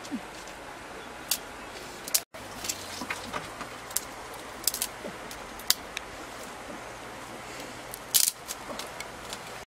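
Dry sticks cracking and snapping as they are broken by hand for firewood: a scattered string of short, sharp cracks, the loudest cluster about eight seconds in.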